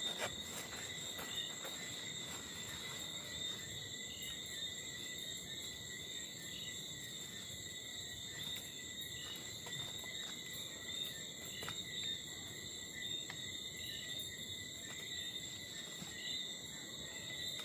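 Night insects, crickets, chirring steadily in high unbroken tones, with fainter short chirps repeating and a few light clicks scattered through.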